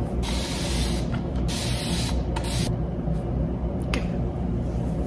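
Spray bottle hissing in four bursts over about three seconds, the first nearly a second long, as product is sprayed onto hair held upside down.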